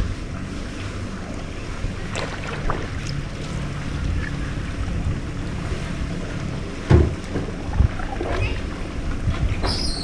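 Small aluminium boat being paddled: wind on the microphone and water noise over a steady low hum, with a few sharp knocks of the paddle against the metal hull, the loudest about seven seconds in.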